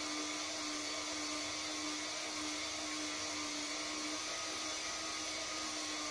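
Cordless drill running steadily at constant speed, spinning a long rod while nichrome wire is wound onto it into a heating coil; an even motor whine with hiss.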